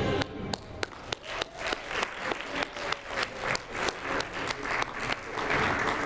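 Audience applauding, with one set of claps standing out sharply at about three a second; the crowd noise swells near the end.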